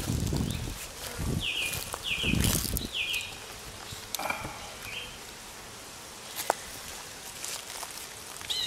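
Outdoor handling noise, with low thumps and rustling in the first few seconds and a sharp click later. A bird chirps three quick falling notes a little over a second in.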